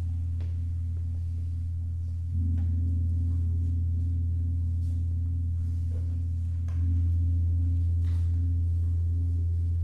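Tam-tams struck with soft mallets, giving a low, sustained, shimmering drone that swells louder in two steps, a little over two seconds in and again about seven seconds in.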